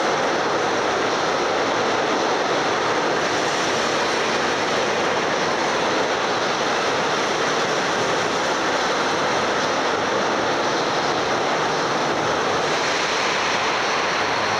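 Steady, even din of a large indoor amusement park hall around a steel roller coaster, with no single sound standing out.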